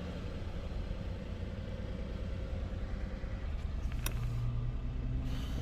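Hyundai Genesis engine idling with a steady low rumble, in a car that will not rev past about 2000 rpm and has its check engine light on (fault code P0336, crankshaft position sensor). A single sharp click about four seconds in.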